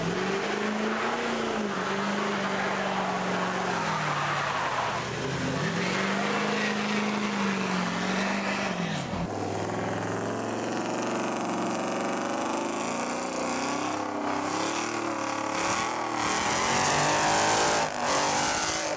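Chevrolet Silverado pickup doing a burnout: the engine revs hard with its pitch rising and falling, over the hiss and squeal of spinning tyres. The revs drop sharply about nine seconds in, then climb higher and louder toward the end.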